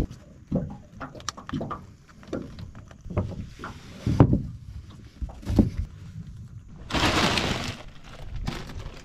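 A crab pot full of mud crabs being handled: irregular knocks, thumps and clatter, with a rushing hiss lasting about a second around seven seconds in.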